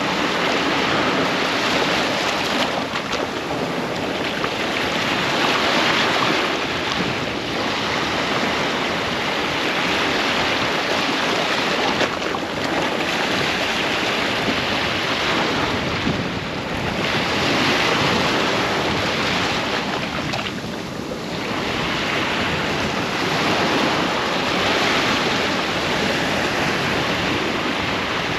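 Ocean waves breaking and washing up a sandy beach, the surf swelling and easing every few seconds, with some wind on the microphone.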